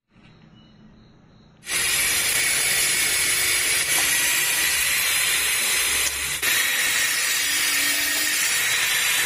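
Corded electric drill starting up about two seconds in and running steadily at full speed as it bores into a wooden block, with a brief dip in the sound about six seconds in.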